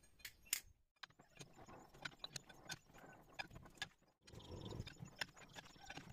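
Faint metallic clicks and knocks of a chuck key working the jaws of a four-jaw lathe chuck, tightening them on a round bar. The sharpest clicks come in a short cluster near the start, then scattered taps follow.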